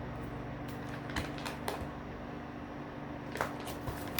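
A steady low hum with light clicks and taps over it, a few about a second in and a few more past three seconds.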